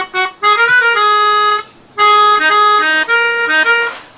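Melodica played as a folk melody: held, reedy notes in two phrases with a brief pause about halfway through.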